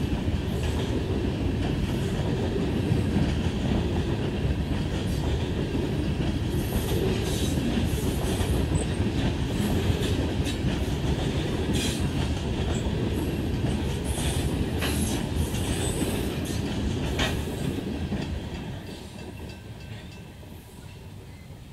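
Freight train's tank cars rolling past: a steady rumble of steel wheels on rail with clickety-clack over the rail joints and brief high wheel squeals here and there. The rumble fades over the last few seconds as the end of the train moves away.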